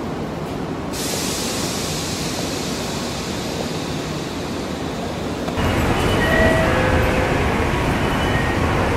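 Railway terminal ambience: a steady wash of train and concourse noise that steps up abruptly about a second in and again about halfway through, with a few faint high tones in the louder part.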